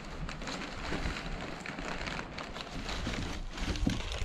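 Plastic wrapping and packing material rustling and crinkling as a stove part is lifted out of a cardboard box, over a low wind rumble on the microphone.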